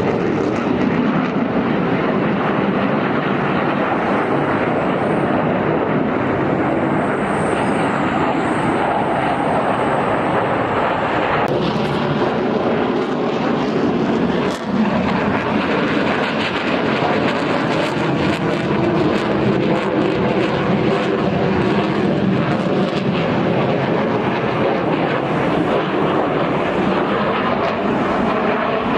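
Military aircraft flying a display overhead: a steady, loud rushing engine noise, with a brief dip about halfway through.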